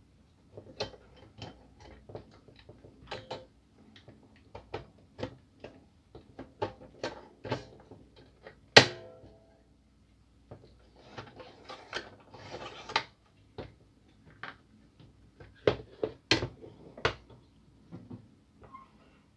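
Plastic and metal parts of a Kyocera DK-150 drum unit being handled and seated by hand: irregular clicks and knocks, with one sharp, loud click and a short ring about nine seconds in. A stretch of scraping and rustling follows around twelve to thirteen seconds, then three loud clicks at about sixteen to seventeen seconds.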